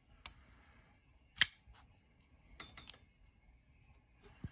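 MBK Mini Old Guard folding knife being opened and closed to test its action: a few separate sharp metallic clicks as the blade swings out and snaps shut, the loudest about one and a half seconds in and a quick cluster near three seconds.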